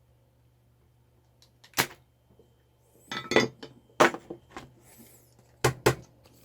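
Handling noise on a repair bench: a few sharp clicks and knocks of tools and hard plastic keyboard parts being picked up and set down, irregularly spaced, with a short cluster around the middle.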